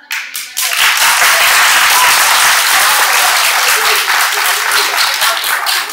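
Audience applauding: many hands clapping, breaking out suddenly, filling the hall within about a second, then holding steady and easing off a little near the end.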